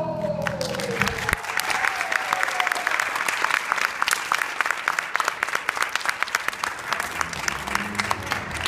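Recorded song music ending on a falling note about a second in, followed by audience applause.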